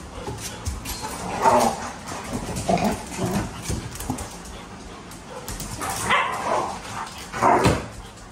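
Dogs play-fighting, giving short bursts of barks and whines. The loudest come about a second and a half in and again near the end.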